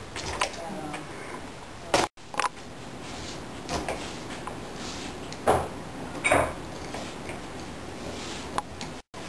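A cat batting and pawing at a clip on the end of a balloon string: a handful of light knocks and taps at irregular intervals.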